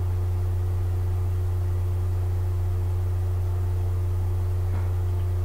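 Steady low-pitched hum, unchanging throughout, with two faint higher steady tones above it.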